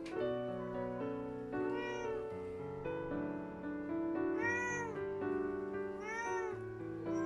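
Cats meowing: three drawn-out meows, rising and falling in pitch, the second and third louder than the first, over background piano music.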